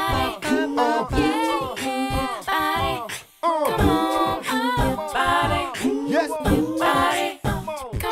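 Background music sung by several voices without instruments, with a brief break about three and a half seconds in.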